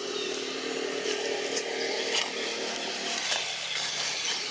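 A small engine running steadily with a droning hum, fading out after about three seconds.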